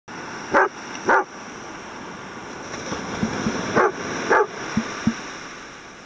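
Golden retriever barking: two pairs of loud barks, the second pair about three seconds after the first, with a few softer short low sounds in between. Under them runs the steady wash of surf.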